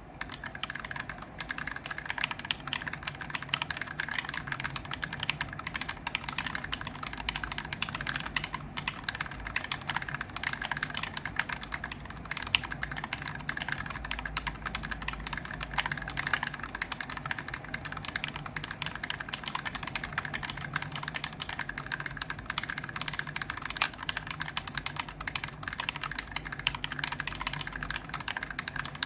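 Continuous fast typing on an aluminum-cased 40% mechanical keyboard (Idobao Abacus ID42) with lubed Gateron Yellow linear switches, a steady stream of keystroke clacks.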